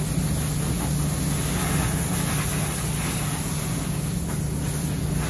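Hose spraying water onto a tall mesh dryer lint filter: a steady hiss. A steady low machinery drone runs underneath.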